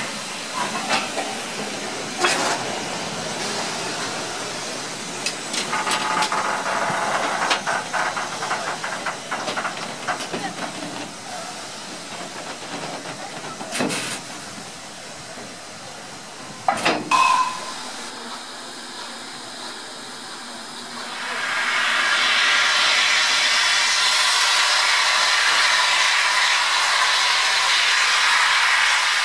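Steam locomotives hissing. A standing engine gives off a moderate hiss, broken by scattered clicks and a few sharp knocks. About three-quarters through, a louder, steady hiss takes over: steam blowing from a tank engine's open cylinder drain cocks.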